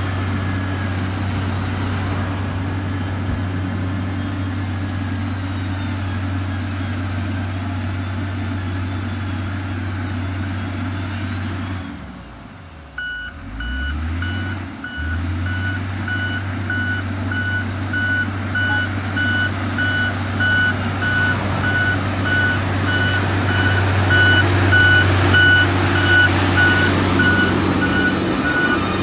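Heavy diesel construction machine running with a steady low drone. About halfway through, after a brief dip in the engine sound, a reversing alarm starts beeping at an even pace, the signal that the machine is backing up.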